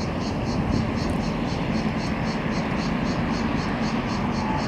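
Steady low rumble of a departing container ship and the harbour around it, with a hum. Over it runs a fast, even, high-pitched pulsing, about four times a second.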